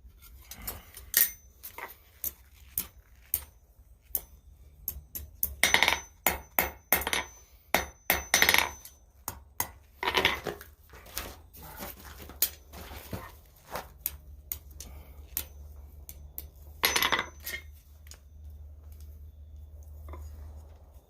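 Forging blows on steel at the anvil: a couple of dozen sharp strikes at uneven spacing, some leaving a thin metallic ring, with quicker runs of blows in the middle. A low steady hum runs underneath.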